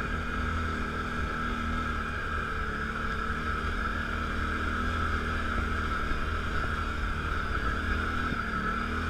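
ATV engine running steadily in low range as the four-wheeler climbs a steep dirt trail, with a steady high whine over the low engine drone.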